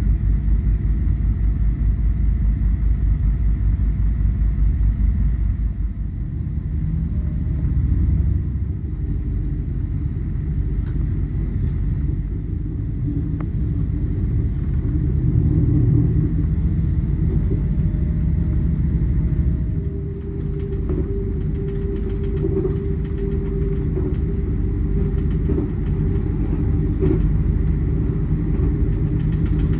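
A motor vehicle's low, continuous rumble, its tone shifting about six seconds in and again about twenty seconds in.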